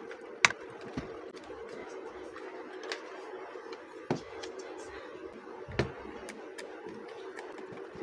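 Sharp plastic clicks and knocks as a hair dryer's plastic handle casing is handled and fitted back together around the power cord. The loudest knock comes about half a second in, with a few more scattered through, over a steady low hum.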